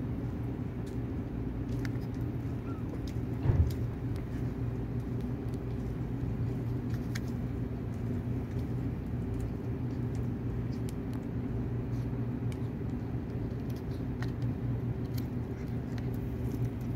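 Steady low mechanical hum, with faint scattered clicks of a kitten chewing chicken and rice. A single louder bump comes about three and a half seconds in.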